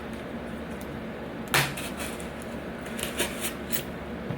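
A kitchen knife cutting and prying at a model car's sealed plastic packaging: one sharp click about a second and a half in, then a few light ticks.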